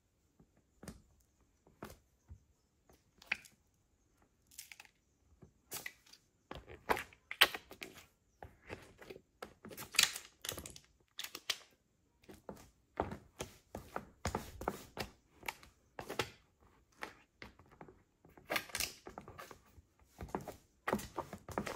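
Stiletto heels stepping and stamping on burst tubes of cream on a hard floor: sharp heel taps mixed with squelches and crinkling of the tubes. The steps are sparse at first and become quicker and busier from about six seconds in.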